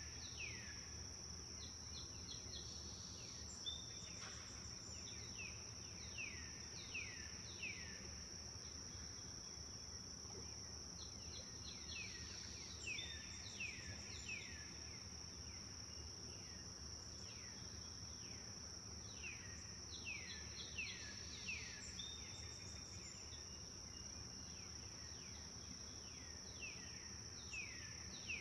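Birds calling in bouts of quick downward-sliding chirps, repeated every few seconds, over a steady high-pitched insect drone.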